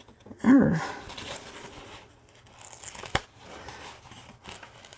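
Clear plastic release film on a diamond painting canvas crinkling and rustling under the hands as it is smoothed and lifted, with a sharp click about three seconds in. A short voiced sound about half a second in is the loudest thing.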